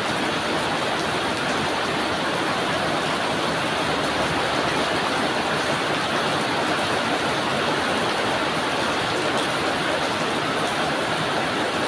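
Steady drizzling rain, an even unbroken hiss of drops.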